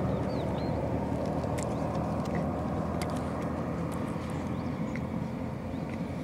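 Jet airliner engine noise heard across the airfield: a steady, dense rumble that slowly fades as the aircraft moves away.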